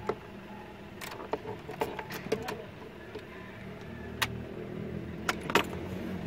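Scattered, irregular clicks and taps from the turn-signal stalk and switchgear of a Mitsubishi Strada pickup being handled, heard inside the cab over a steady low hum.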